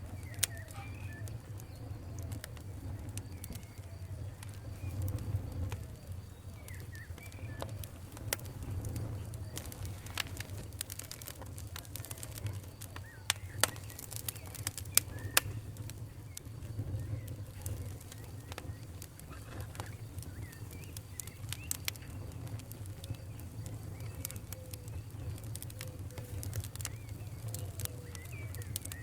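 Wood fire in a fireplace crackling, with irregular sharp pops and snaps over a steady low rumble of the flames, the loudest pops about halfway through. Faint short chirping squeaks come and go among them.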